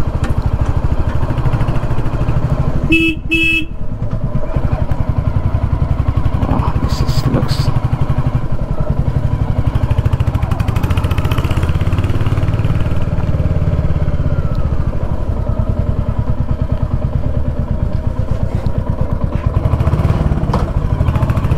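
Royal Enfield Hunter 350's single-cylinder engine running steadily under way, with a horn sounding two short beeps about three seconds in.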